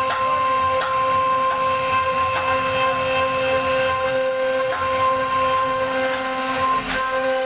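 CNC router spindle running with a steady high whine while its bit carves relief into a wooden door panel, with faint irregular clicks from the cutting.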